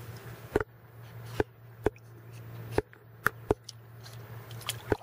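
A puppy chewing and smacking on a piece of hot dog: sharp, irregular wet clicks, about seven in five seconds, over a steady low hum.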